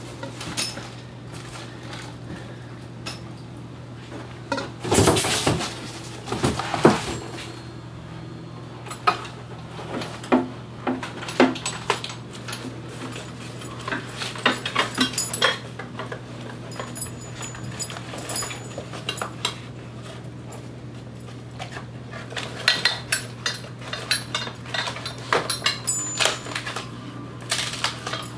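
Paramotor parts and packaging being handled during unboxing and assembly: irregular metallic clinks, knocks and rattles, with a louder stretch of rustling handling noise about five seconds in. A steady low hum runs underneath.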